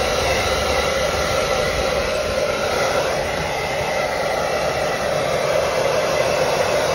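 Handheld hair dryer running steadily, a continuous rush of air with a faint steady whine, blowing on a wet cat's fur to dry it.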